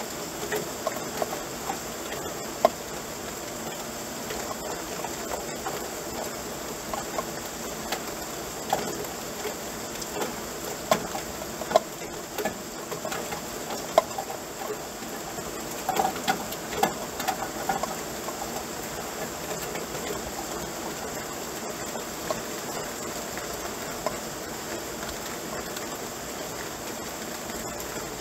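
Steady rain falling, with irregular sharp drips tapping on a nearby surface, thickest about halfway through.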